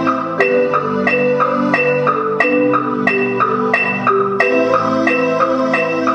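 Mallet-keyboard music in a marimba-like sound, a quick repeating pattern of struck notes, about three a second, over held lower tones.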